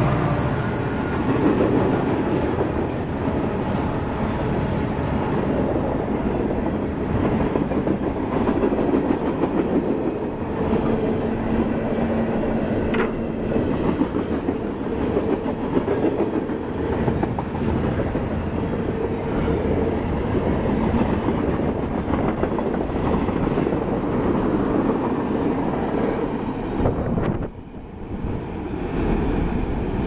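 Freight train cars rolling past close by: a steady rumble with wheels clicking over rail joints. About three seconds before the end, the noise dips briefly, then returns.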